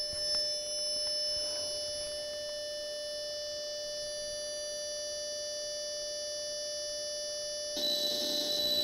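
Atari 8-bit computer's cassette-save tones during CSAVE to an XC12 tape drive: a steady high-pitched leader tone. About eight seconds in, the data starts and the tone turns rougher and pulsing.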